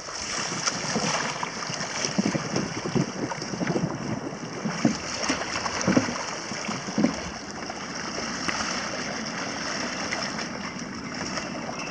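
Strong wind buffeting the microphone over choppy water, with water lapping and splashing against the hulls. The buffeting comes in irregular low thuds, heaviest in the first seven seconds, then settles to a steadier rush.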